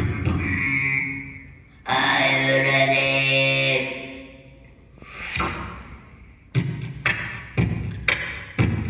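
A child's human beatbox: two long held, humming vocal tones, a breathy swell, then from about six and a half seconds in a kick-and-snare beat with sharp hits about twice a second.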